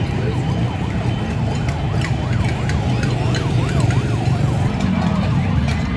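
A siren sounding in quick rising and falling sweeps over the steady noise of a large street crowd.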